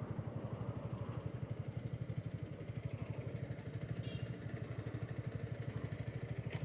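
Voge SR4 Max 350 scooter's single-cylinder engine running with an even, rapid pulse of about a dozen beats a second.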